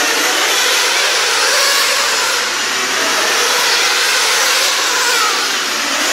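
Nitro glow engines of RC sprint cars running at high revs on a dirt oval. A steady high-pitched drone with faint rises and falls in pitch as the cars go round.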